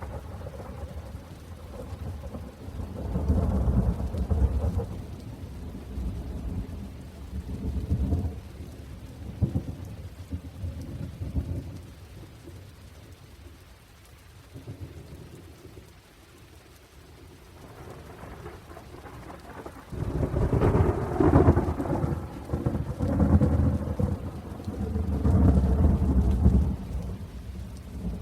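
Thunderstorm: steady rain with rolls of thunder rumbling over it. One swell of thunder comes about three seconds in, the storm eases to mostly rain in the middle, and the loudest long rumbles come in the last third.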